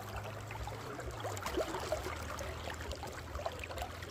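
River water running faintly, with small scattered gurgles and ticks over a low steady hum.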